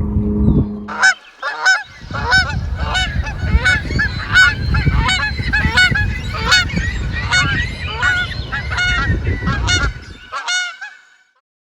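A flock of Canada geese honking, many repeated calls overlapping one another, starting about a second in and stopping abruptly near the end. For the first second there is a steady low hum, which cuts off just before the honking starts.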